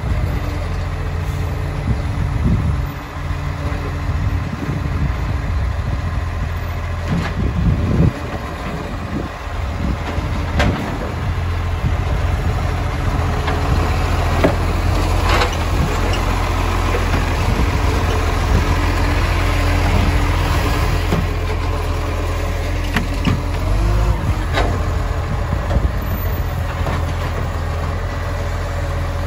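Side-loading garbage truck's diesel engine running steadily while its hydraulic side arm grips, lifts and lowers wheelie bins, with several sharp clunks of the bins and arm.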